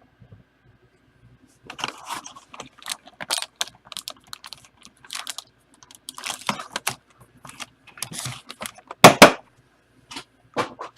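Trading-card packaging being opened and handled: an irregular run of crinkles, taps and clicks, the loudest about nine seconds in.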